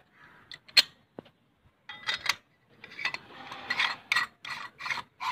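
Steel murukku press and metal vessels clinking and clattering as they are handled: one sharp clink about a second in, then a busy run of metal clinks and scrapes from about two seconds in.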